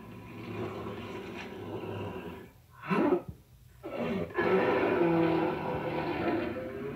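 Rough growling and snarling, like a large dog or wolf, in long stretches with two short breaks near the middle, strongest in the second half.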